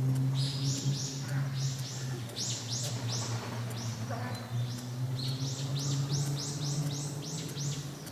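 A small songbird singing runs of quick, high notes that slide downward, repeated in several bursts, over a steady low hum.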